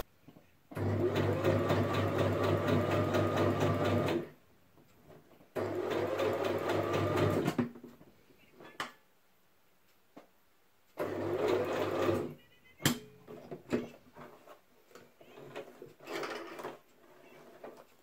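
Electric domestic sewing machine stitching in three short runs, the first about three and a half seconds long, the next two shorter, each starting with the motor speeding up to a steady rapid stitch. In the pauses between runs there are only light clicks.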